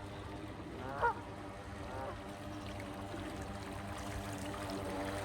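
Geese honking twice, about one and two seconds in, then the steady hum of the radio-controlled model motor gun boat's twin motors building up as it runs.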